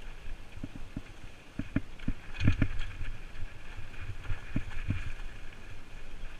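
Mountain bike descending a rough dirt trail: the bike rattling and knocking irregularly over bumps and roots, the hardest hits about two and a half seconds in, over a steady low rumble.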